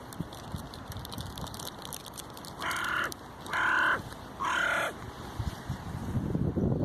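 A crow cawing three times in quick succession, each caw about half a second long.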